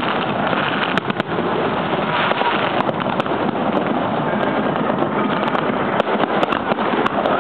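Fireworks show going off: scattered sharp bangs and crackles, about half a dozen, over a dense steady din.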